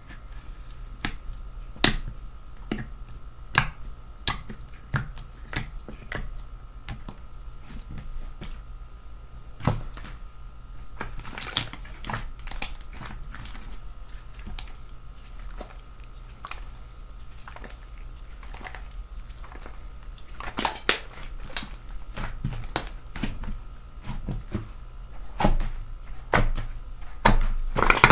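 Slime being pressed and worked by hand, giving irregular sharp pops and clicks, with a few longer crackling squishes.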